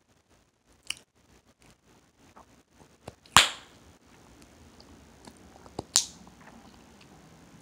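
Hubba Bubba bubble gum cracking in the mouth: two loud, sharp snaps about three and a half and six seconds in, with a few softer clicks between.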